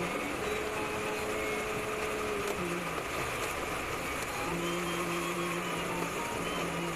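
Steady rush of air around a glider's cockpit canopy in flight. Over it sounds a variometer's held electronic tone, which shifts pitch, drops out for a moment near the middle and returns at a lower pitch.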